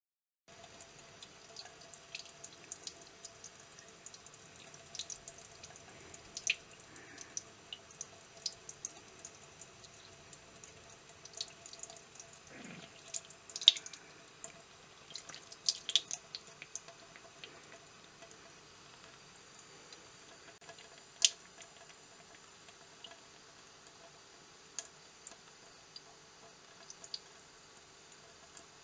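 Thin stream of tap water trickling into a sink, with scattered sharp drips and small splashes.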